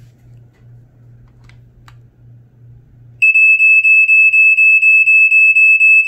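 Black & Decker Flamebuster SMK6D/M3 smoke alarm sounding on test, starting about three seconds in: a loud, high-pitched horn tone broken by very short gaps about four times a second. This is the 5/6 pulse pattern, with more on-time than the 4/6 these alarms usually give.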